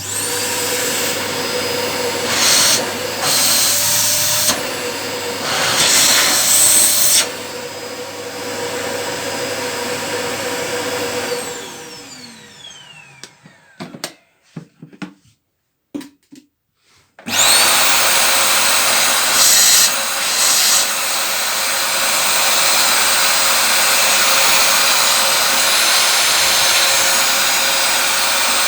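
Rowenta RO3786EA vacuum cleaner switched on and running with a steady motor whine, with a few brief louder surges in the suction sound. About twelve seconds in it is switched off and the motor spins down with a falling whine, a few clicks and knocks follow, and about seventeen seconds in it is switched on again and runs steadily.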